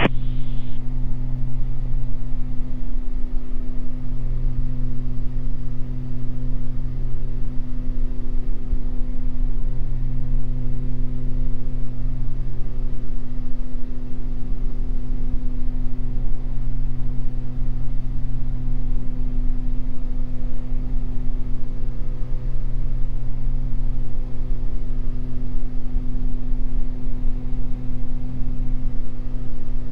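Steady drone of a Beechcraft G58 Baron's two six-cylinder Continental IO-550 engines and propellers, heard inside the cockpit in flight: a low hum with a few steady tones above it.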